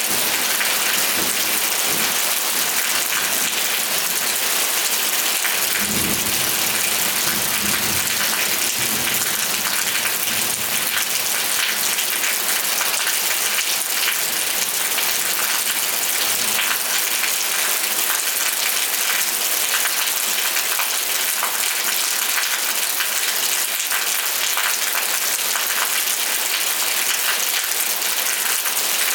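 Steady, even rain hiss, with a brief low rumble about six seconds in.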